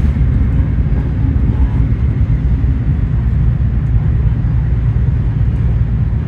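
Endeavour diesel railcar in motion: a steady, loud low rumble heard inside the passenger cabin.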